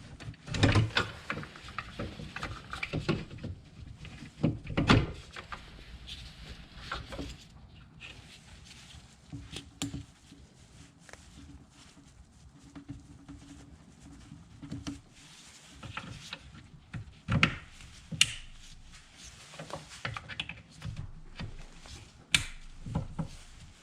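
Irregular knocks, clicks and rubbing of hands fitting hoses and connectors onto a new plastic coolant expansion tank in a car's engine bay, with a few sharper clicks scattered through.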